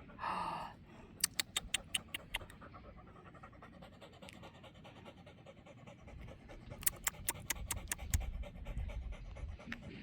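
Dog panting after running fetch, with two quick runs of sharp clicks.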